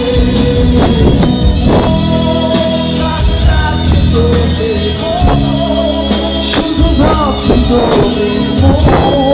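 A live rock band plays loudly, with electric guitars, bass and drums under a lead vocal.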